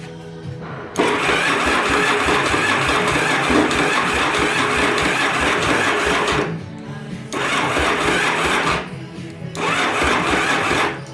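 1981 Yamaha Virago XV750's electric starter cranking the engine in three attempts: a long one of about five seconds, then two short ones of about a second and a half each, without the engine catching, as the bike refuses to start after a rear-cylinder backfire. Music plays underneath.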